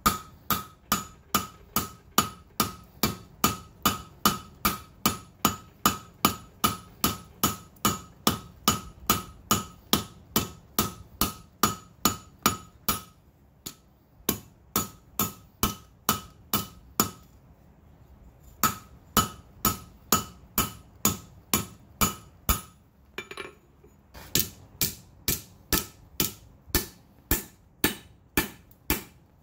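Hand hammer striking hot steel on an anvil at a steady pace of about two blows a second, each blow ringing, as the reins of a pair of blacksmith tongs are drawn out. The hammering stops briefly a few times, about halfway through and again later on.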